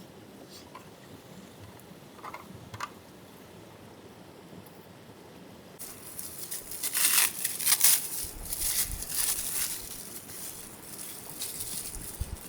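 Irregular crinkling and crunching that starts suddenly about six seconds in and goes on for several seconds, loudest around seven to eight seconds. A few faint clicks come before it.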